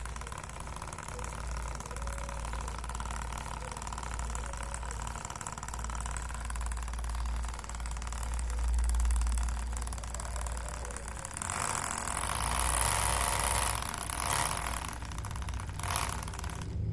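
Small Tamiya DC motor running a miniature PVC one-cylinder engine model, a steady mechanical hum and whine. A louder hiss comes in about eleven seconds in and lasts a few seconds, with a short burst of noise near the end.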